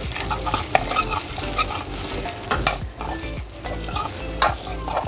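Potato cubes and cumin seeds sizzling as they fry in hot oil in a kadai, stirred with a metal spoon that scrapes and gives a few sharp knocks against the pan.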